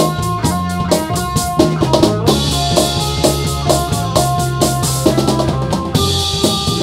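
Live band playing an instrumental passage: electric guitar, bass guitar and a drum kit keeping a steady beat. Cymbals come in louder about two seconds in.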